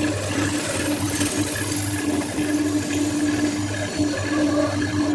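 Wood lathe running with a steady motor hum while a flat turning tool scrapes and cuts the face of a spinning wooden blank.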